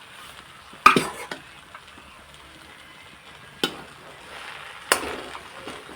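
Vegetable fried rice being stirred in a frying pan, the spatula knocking against the pan three times, loudest about a second in, over a low sizzle.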